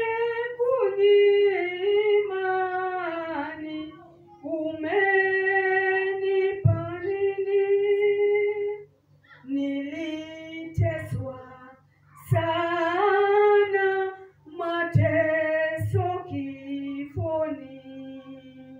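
A woman singing a worship song into a microphone, in drawn-out phrases with short breaks between them. No instruments are heard. A steady low electrical hum runs beneath the voice.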